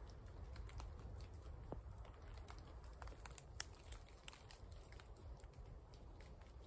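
Faint outdoor stillness in wet woodland: a low steady wind rumble with scattered light ticks and patters, one a little louder about three and a half seconds in.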